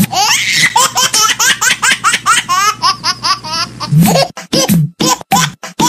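High-pitched laughter in quick bursts, turning into a steady run of short laughs about three a second in the last two seconds.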